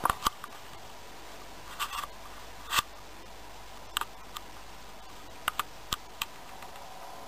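Scattered short, sharp clicks and ticks at irregular intervals, some in quick pairs, over a low steady hiss.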